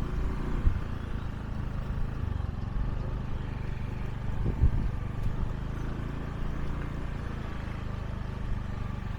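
Small motorbike engine running steadily while riding, a low hum with two short thumps, one just under a second in and one about four and a half seconds in.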